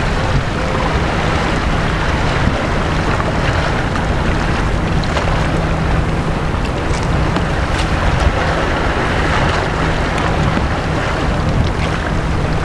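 Steady wind rushing over the microphone, with small sea waves lapping against the inflatable fishing boat and a few faint ticks of water.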